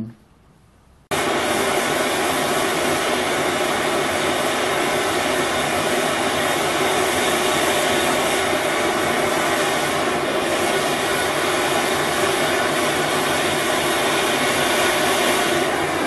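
Bullfinch gas torch burning with a steady hiss from its flame as it heats a pipe-to-tin joint for bronze brazing. The sound starts abruptly about a second in.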